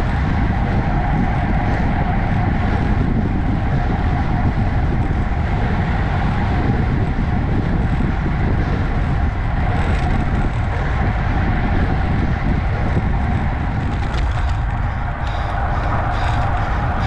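Wind rushing over a handlebar-mounted action camera's microphone, with road bike tyre noise on asphalt at speed, easing slightly as the bike slows; a few light clicks near the end.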